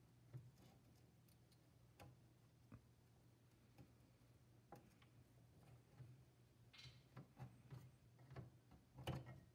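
Near silence with a low steady hum and faint, scattered clicks and taps of small cutters and fingers against the components of a circuit board. The clicks come in a cluster near the end, where they are loudest.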